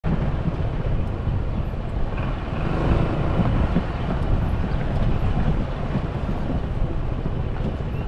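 Wind buffeting the microphone: a loud, gusting low rumble.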